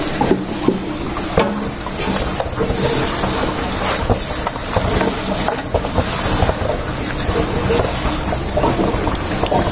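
Hand mixing raw chicken in a thick masala marinade inside a large aluminium pot: wet squelching with scattered clicks and scrapes against the metal, over a steady low background noise.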